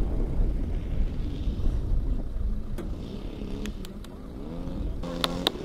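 Radio-controlled model airplane landing on a gravel strip. Wind rumbles on the microphone, then the engine's note rises and falls at low throttle as it touches down and rolls out, with a few sharp clicks near the end.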